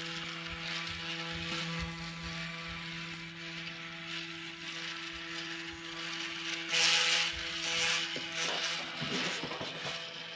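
Stepper motors of a 3D-printed antenna rotator running on a stepper driver board, turning plastic gears with a steady electric whine made of several held tones. A brief rushing noise comes about seven seconds in, and the tones waver near the end.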